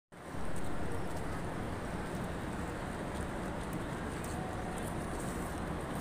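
Steady city street background noise: a continuous low rumble and hiss with no distinct events.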